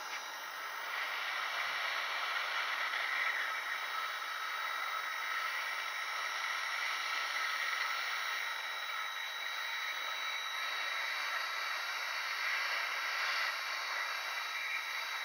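Hot air gun blowing steadily onto a chip on a laptop mainboard, an even airflow hiss with a faint high whine.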